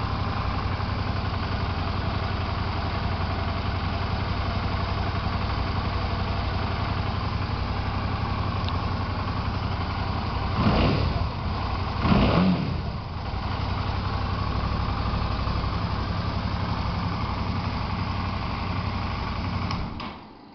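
Suzuki DL650 V-Strom's V-twin engine idling steadily, blipped twice about halfway through, then switched off near the end.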